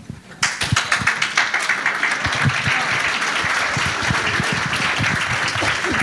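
A roomful of people applauding, starting abruptly about half a second in and holding steady.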